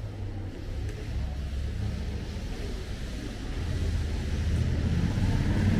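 A low engine rumble from street traffic that grows louder over the last couple of seconds as a vehicle comes closer.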